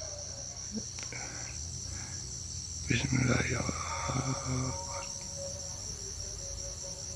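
Insects chirring steadily and high-pitched. Around the middle, a brief low murmur like a muffled voice lasts a second or two.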